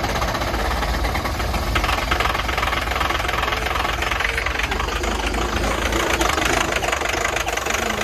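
Ford Power Stroke V8 diesel running rough as it catches on a cold start with ether (starting fluid), popping as it fires unevenly.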